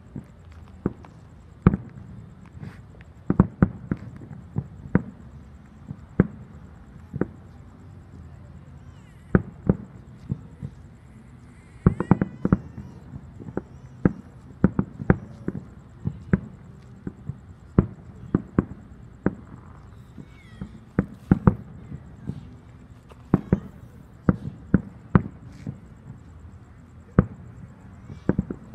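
Fireworks going off: a long series of sharp bangs at irregular intervals, one or two a second, with quicker clusters about twelve seconds in and again past the twenty-second mark.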